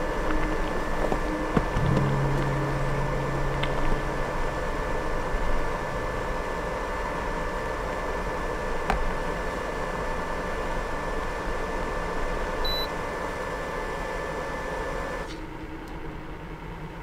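A steady hum of a fan or motor running, with one short high electronic beep near the end; the hum drops off suddenly soon after.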